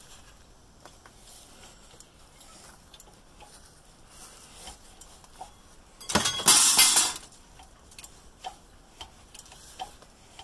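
Scattered light metallic clicks and taps from handling a golf cart engine's crankshaft and crankcase half on a shop press, with a louder noisy rush lasting about a second, about six seconds in.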